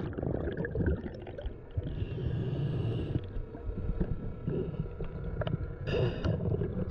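Underwater bubbling and water churning around the camera just after a scuba diver's entry, over a steady low rumble. A brief hiss of scuba regulator breathing comes about two seconds in and again about six seconds in.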